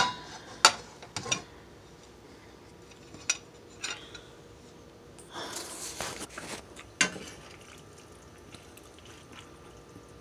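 Cookware being handled: about half a dozen sharp clinks and knocks of a pot lid and a serving spoon against a cast-iron skillet, the loudest right at the start. About five seconds in comes a second or so of scraping as the spoon stirs and scoops the cooked cabbage and vegetables in the pan.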